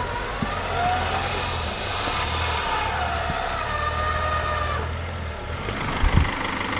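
Vehicle engine idling steadily, with a quick run of about eight short high-pitched chirps near the middle and a low thump near the end.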